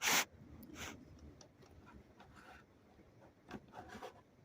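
Handling of a small die-cast toy car: a short loud burst of noise right at the start, then a few faint light clicks and taps as the car is turned over and played with.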